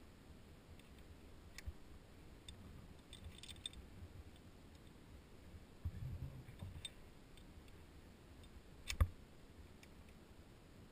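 Faint clicks and clinks of caving hardware, karabiners and a pulley on a steel-cable tyrolean traverse, shifting as the caver hangs on the line. There is a soft low bump about six seconds in and one sharp knock about nine seconds in.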